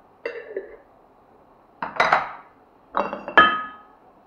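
Empty glass jars clinking against each other: three brief clusters of knocks, the last one, about three and a half seconds in, ringing clearly.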